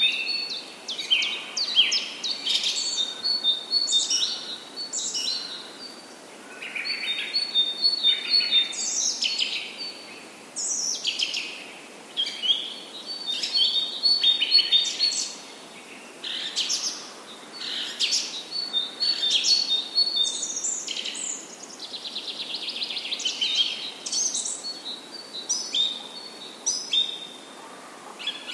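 Songbirds singing and chirping over a steady background hiss: repeated short high chirps and whistled phrases, with a rapid trill about three-quarters of the way through.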